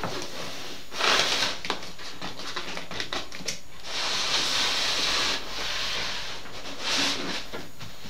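Polystyrene foam box being slid out of its cardboard box, foam and cardboard rubbing and scraping in several bursts, the longest lasting over a second about four seconds in.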